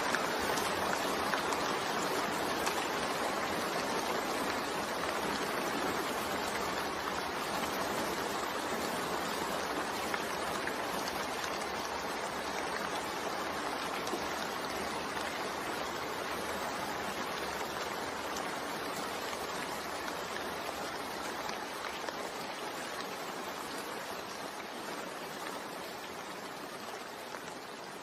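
Steady rain, an even hiss with no distinct drops or thunder, gradually growing quieter over the last third.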